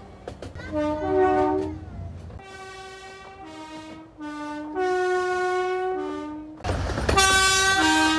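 Two-tone train horns sounding a run of blasts, each stepping between a higher and a lower note. About seven seconds in, the loudest blast sounds over the rumble of a passing train.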